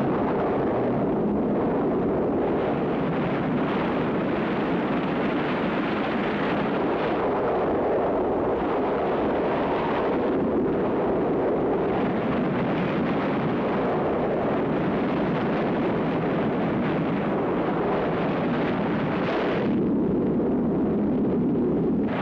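Film storm sound effect: wind and heavy rain as a loud, steady rushing noise. About twenty seconds in the higher hiss swells briefly and then falls away, leaving a lower rumble.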